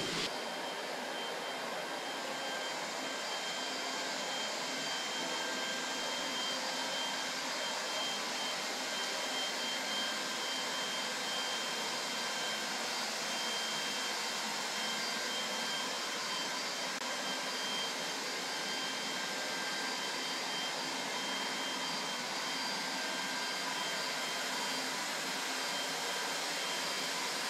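Electric blower running steadily: a constant rush of air with a faint high whine.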